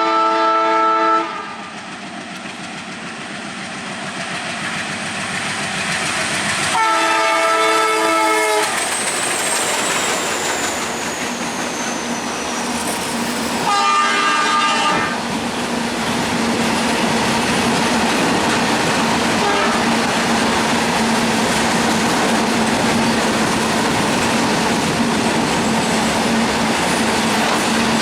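Twin WDG3A ALCO diesel locomotives sounding their horn: one blast at the start, another about seven seconds in and a third about fourteen seconds in, with the engines growing louder between the first two. The wagons of the freight train then roll past with a steady clickety-clack of wheels over the rail joints.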